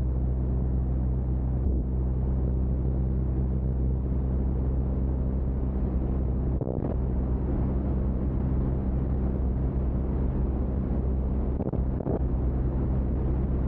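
Biplane's piston engine and propeller droning steadily in flight, heard from on top of the wing with rushing air over it.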